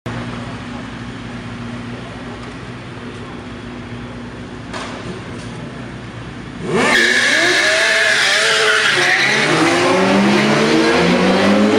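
Several sport motorcycles idling with a steady hum, then about seven seconds in suddenly revving hard and accelerating away, the engine note sweeping up in pitch again and again.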